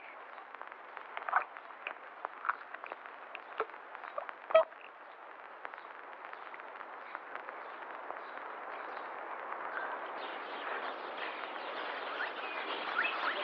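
Steady hiss of an old film soundtrack with scattered clicks and a few louder short pops in the first few seconds; the hiss grows slightly louder near the end.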